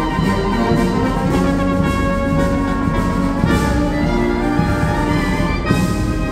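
Concert band playing a march, trumpets, clarinets and euphonium sounding together in full ensemble.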